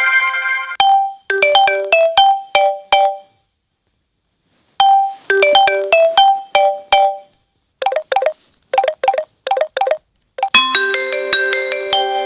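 Samsung Galaxy S7 ringtones playing one after another. A short melody of quick clear notes plays twice with a pause between, then a run of short clipped notes. About ten seconds in, a new tune with held chords begins.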